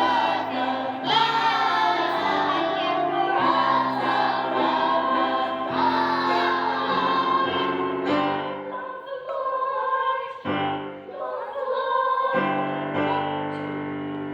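Children's choir singing a song with accompaniment, ending on a long held chord that fades away near the end.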